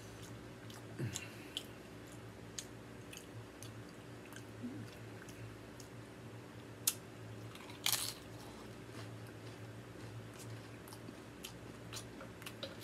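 Chewing and biting into Tostitos tortilla-chip nachos, with scattered sharp crunches, the loudest about seven and eight seconds in.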